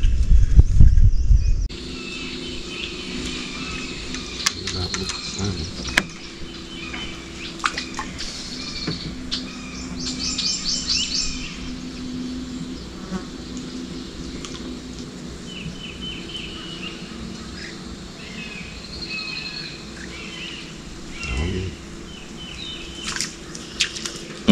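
Birds chirping over a steady insect buzz. A loud low rumble at the start cuts off abruptly about two seconds in.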